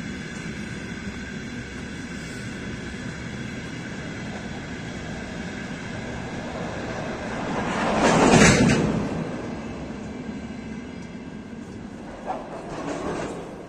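Tank wagons of a long freight train rolling past, a steady rumble of wheels on rail with a thin steady whine over it. A little past the middle a louder rushing sound swells and fades over about two seconds, and near the end there is a sharp click followed by a smaller swell.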